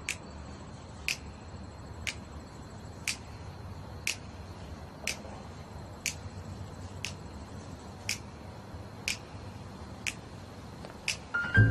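Clock-like ticking, one sharp tick about every second, over a faint steady high hiss-tone.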